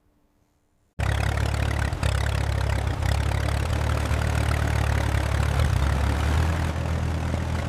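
Restored vintage tractor's engine running steadily at a low, even idle. It cuts in suddenly at full loudness about a second in, with no cranking heard.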